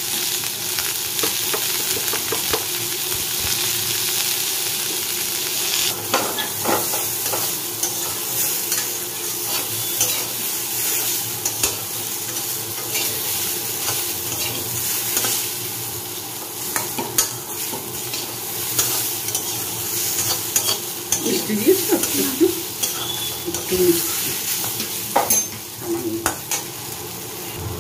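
Sliced papaya frying in oil in a metal kadai, sizzling steadily while a metal spatula stirs and scrapes it, with scattered clicks of the spatula against the pan.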